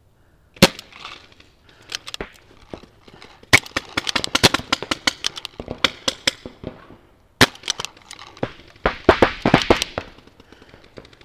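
Paintball markers firing: a single pop under a second in and a couple more around two seconds, then rapid strings of shots from about three and a half to seven seconds and again around nine to ten seconds.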